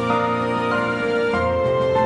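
Background music: sustained, slow-moving chords.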